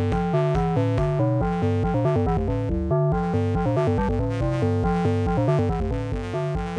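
Electronic music played live on patch-cabled synthesizers: a fast sequence of pitched notes stepping several times a second over a pulsing, repeating bass line.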